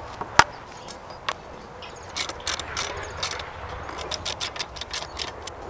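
Metal hardware clicking as bolts are fitted to a steel frame bracket on a wooden beam: a sharp click near the start, then a quick, irregular run of clicks through the middle.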